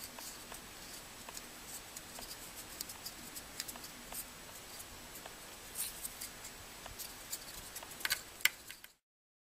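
Light, irregular clicking and rustling of a 3D-printed plastic bracelet being turned in the fingers, its thin segments ticking against each other and the skin, with a few sharper clicks near the end.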